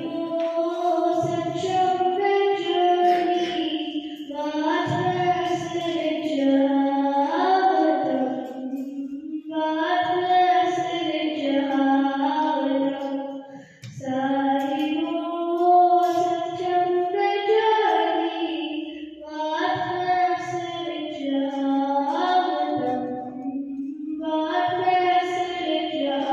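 A girl singing solo without accompaniment, in a high, clear voice, in sung phrases of about five seconds each with short breaths between them.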